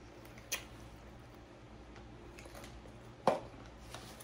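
Eating sounds close to a clip-on microphone: chewing a small piece of fried chicken crust, with a sharp click about half a second in and a louder sharp click about three seconds in.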